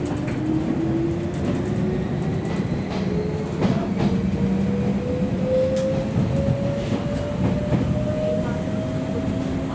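Interior running sound of a JNR Series 117 electric train's motor car as it accelerates: the traction motor whine rises steadily in pitch over a dense under-floor rumble. A few sharp clacks come from the wheels running over rail joints and points.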